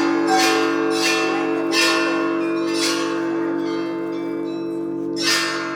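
Russian Orthodox church bells ringing: strikes on the bells come about once a second over the steady hum of a large bell ringing on, then after a pause one more strike about five seconds in.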